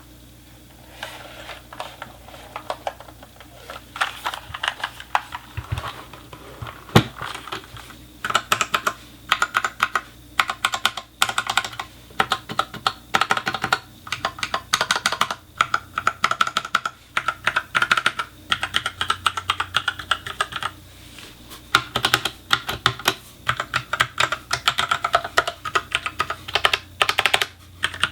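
Typing on an Ajazz K870T mechanical keyboard with Huano brown tactile switches: scattered key presses for the first several seconds, then quick runs of key clacks with short pauses between them.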